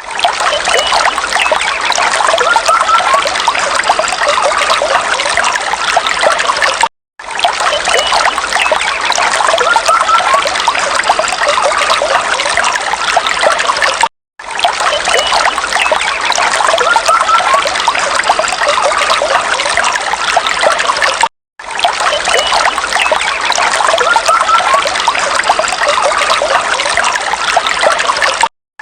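Small stream babbling and trickling over stones, with a few faint bird chirps above the water. The same stretch of about seven seconds loops, cutting out briefly about every seven seconds.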